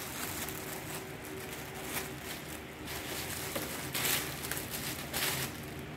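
Gift wrapping rustling and crinkling as it is pulled and torn open by hand, with louder crackles about four and five seconds in.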